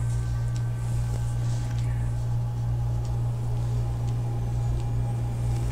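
Steady low hum, with a few faint soft clicks from hands touching the cards on the table.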